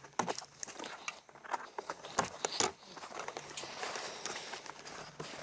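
Automatic wire stripper working on a thin CAN wire: irregular clicks and snaps of its jaws, with crackling and rustling as the wiring is handled and the insulation is pulled off.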